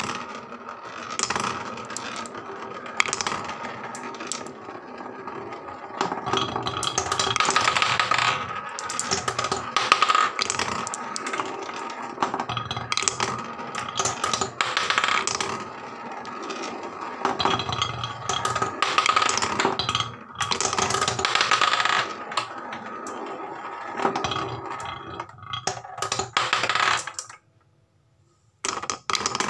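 Marbles rolling around a spiral plywood marble-run track: a steady rolling rumble studded with clicks and knocks as they strike the track's walls. The sound cuts out suddenly near the end, then starts again.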